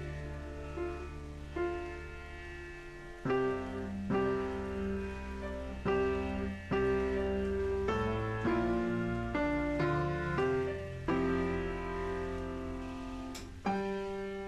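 Background music: slow, gentle piano chords over a steady low bass, with a new chord struck about every second.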